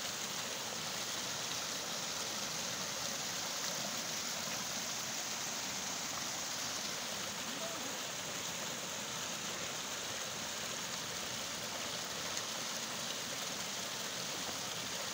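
Small rocky stream running steadily under a stone slab footbridge, a constant even rush of water.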